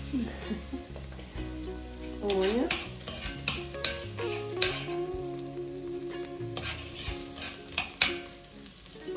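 Chopped onion and garlic sizzling in hot coconut oil in an enamelled pot, stirred with a spoon that scrapes and knocks against the pot several times, the sharpest knock about 8 seconds in.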